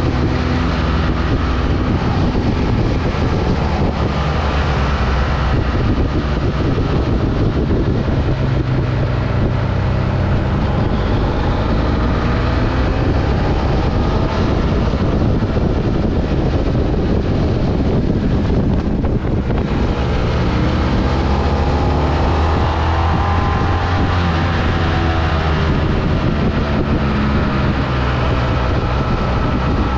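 Vehicle engine running under way, its pitch slowly rising and falling with changes of speed, over steady road and wind noise.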